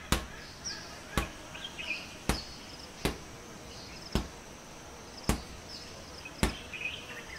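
A steady series of sharp knocks, about one a second, with faint short high chirps between them.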